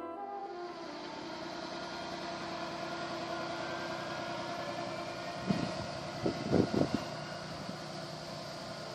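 HSB narrow-gauge diesel railcar pulling away from the platform: steady engine and running noise, with a few short thumps about five and a half to seven seconds in.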